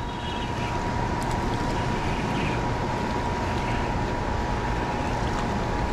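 Steady rush of river water running over rapids below a dam, with a faint steady high whine.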